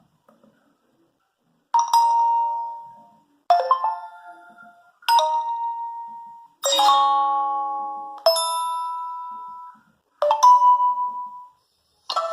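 A Nokia 8110 4G phone's speaker plays a run of short ringtones one after another, after a short silence: six different chime-like tones, each a few bell-like notes that ring and fade, about one every second and a half. Just before the end a longer, fuller ringtone starts.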